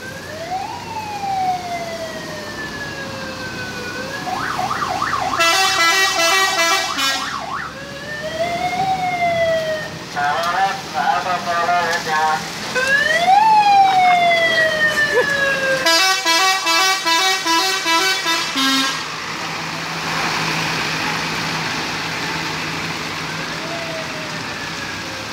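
A bus's siren and telolet multi-tone horn taking turns: the siren gives several whoops that jump up in pitch and slide slowly down, and between them the telolet horn plays two quick, choppy runs of stepped notes, about five and sixteen seconds in. For the last few seconds a steady hiss remains, with one faint whoop near the end.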